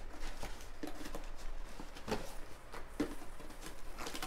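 Packaging being handled inside a cardboard box: irregular rustling and small knocks as boxed parts and paper are lifted out.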